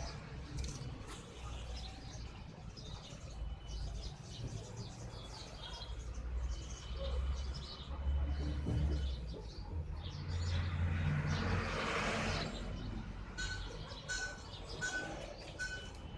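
Birds chirping over a steady low rumble, with a brief rush of hiss about three quarters through and a short note repeated five times, about two a second, near the end.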